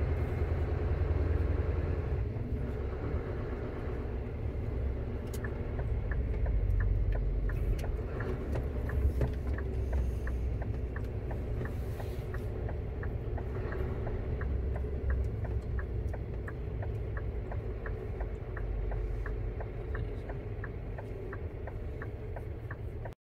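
Lorry engine running under way, heard from inside the cab. From about six seconds in, the turn-signal indicator ticks steadily about twice a second. The sound cuts off abruptly near the end.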